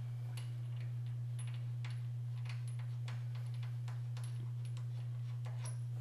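Steady low hum under a string of faint, light clicks, about two a second and unevenly spaced, as a hydraulic floor jack is worked under the lower control arm.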